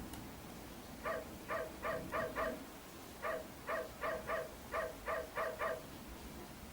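Electronic toy bird calling: two quick runs of short, identical chirps, about five and then about eight, a little under a second apart between the runs.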